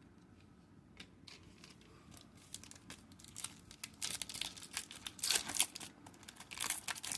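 Trading-card pack wrapper being torn open and crinkled: scattered clicks, then crackling bursts that grow louder from about three seconds in.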